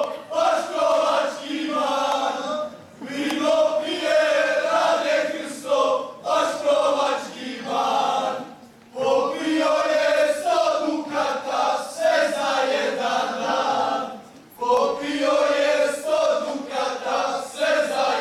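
A group of young men's voices singing together in short phrases, with brief pauses between them.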